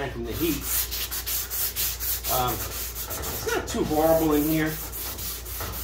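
Hand sanding of high-build primer on a 1956 Chevy Bel Air's steel body panel with a sanding pad: quick, rhythmic back-and-forth rasping strokes, several a second. This is block-sanding the primer to find and flatten highs and lows before sealer.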